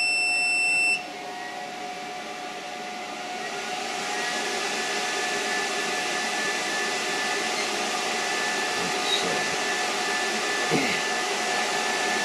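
2000-watt power inverter switching on: a high electronic beep that cuts off about a second in, then its cooling fans spin up and run as a start-up self-test, a steady rush of air with a faint hum and a high whine, louder from about four seconds in.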